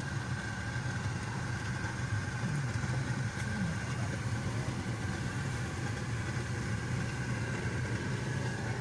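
Car engine and road rumble heard from inside the cabin as the car drives slowly over a dirt road, a steady low hum with a faint high whine over it.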